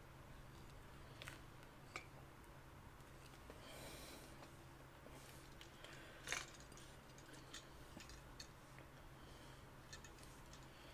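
Near silence over a steady low hum, with a few faint clicks and a brief rustle as small pipe fittings are handled; the loudest click comes about six seconds in.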